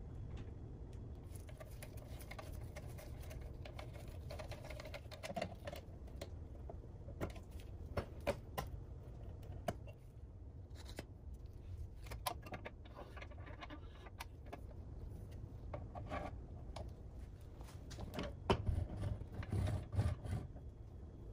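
Scattered light clicks, clinks and knocks of small screws, nuts and the pressed-steel parts of a Tonka toy dump truck being handled and fitted together, over a low steady hum. A busier run of knocks comes near the end.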